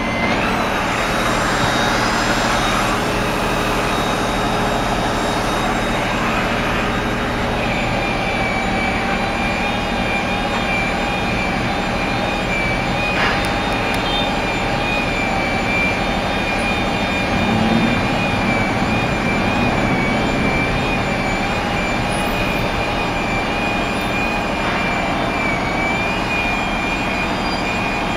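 Steady drone of engines running in stalled street traffic, with a high, even whine over it.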